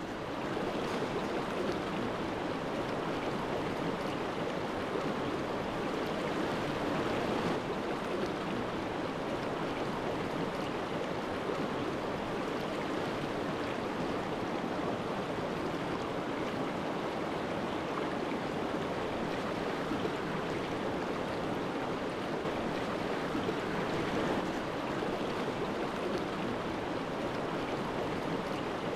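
Small creek running steadily over rocks in a riffle: an even, unbroken rush of water.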